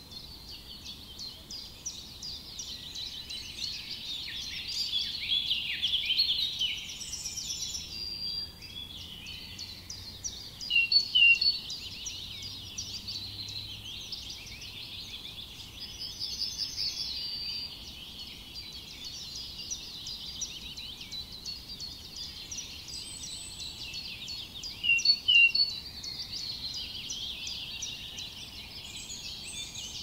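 Many songbirds singing together in a dense, continuous chorus of rapid chirps and trills, with a few louder calls about eleven seconds in and again near twenty-five seconds.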